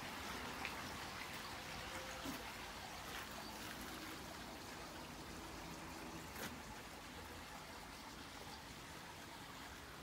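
Faint, steady outdoor background hiss with a few soft clicks.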